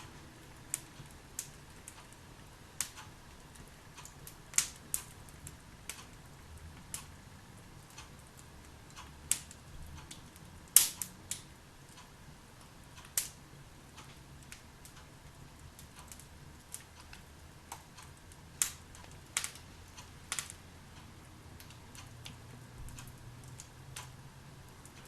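Wood fire burning in a fireplace, crackling with irregular sharp pops, the loudest about eleven seconds in, over a faint low rumble.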